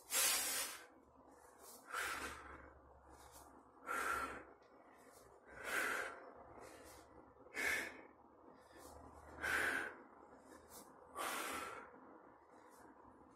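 A man's forceful exhalations through mouth and nose, seven short breaths about one every two seconds, keeping pace with repeated dumbbell raises.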